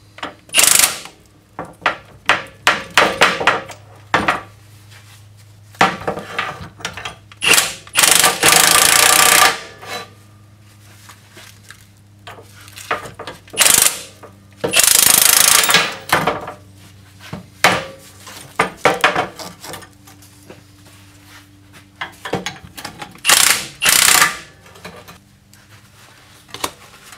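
Milwaukee cordless impact wrench hammering in repeated bursts, the longest about two seconds, as it drives the threaded rods of a coil spring compressor to compress a rear strut's coil spring.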